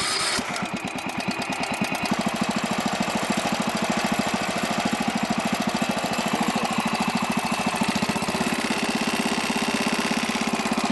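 Wheel Horse lawn tractor engine running steadily with an even, regular firing rhythm, its earlier misfire cured by narrowing a breaker points gap that was set too wide.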